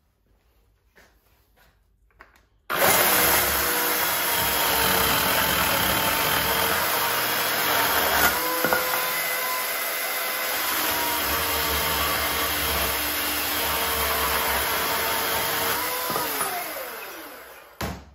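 An electric motor appliance switches on suddenly and runs steadily with a loud whir and a steady hum, then is switched off and spins down, its pitch falling, near the end.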